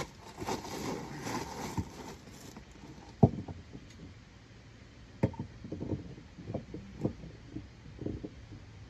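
A golf cart wheel knocking and clunking against the hub and wheel studs as it is worked on by hand while the bolt holes are lined up, with handling rustle at first. The loudest knock comes about three seconds in, with several more spread over the following five seconds.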